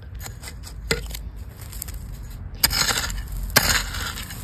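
Metal hoe blade chopping into stony garden soil and scraping through gravel while digging potatoes. Two sharp strikes land in the second half.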